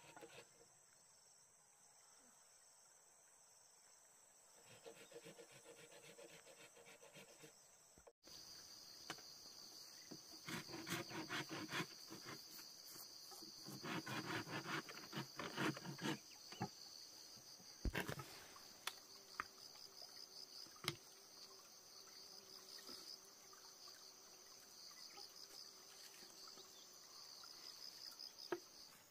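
Faint steady high-pitched chirring of insects, with two stretches of rapid rhythmic rustling or scraping about ten and fourteen seconds in, and a few sharp knocks later on.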